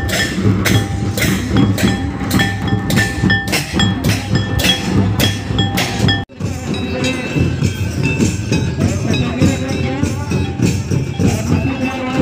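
Folk dance drumming: a steady beat of drum strokes, about three a second, with bright ringing metallic notes over it. About six seconds in it breaks off abruptly and picks up in another stretch of drumming.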